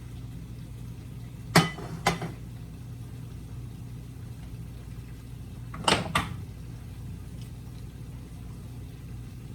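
Two pairs of sharp knocks about four seconds apart, over a steady low mechanical hum.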